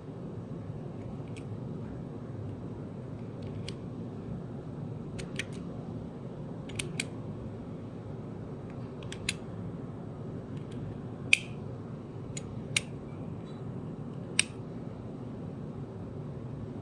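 Metal utility knife clicking as it is handled, likely its blade slider ratcheting and locking: about a dozen sharp, separate clicks at irregular intervals, some in quick pairs, with the loudest about two-thirds of the way through.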